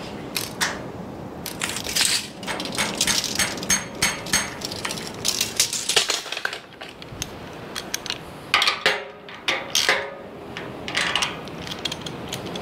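Irregular clicks, clinks and knocks of tools and bolt hardware being handled while a workbench leg is adjusted and tightened, with a brief ringing metallic clink about nine seconds in.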